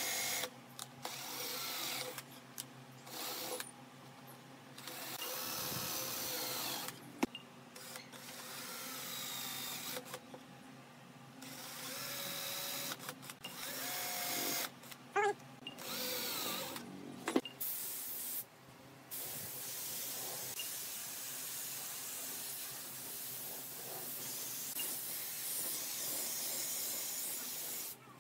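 Cordless drill boring holes into the edge of a wooden table top with a twist bit, in several short runs that start and stop abruptly, the motor's whine briefly rising and falling in pitch.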